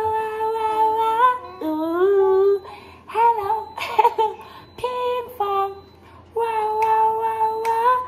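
A woman and a small child singing a children's song together, with long held high notes broken by short phrases that slide up and down in pitch.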